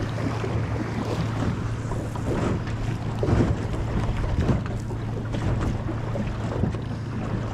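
Choppy water slapping and splashing against the hull of a small drifting boat, with wind on the microphone and a steady low hum underneath. A few louder slaps come in the middle.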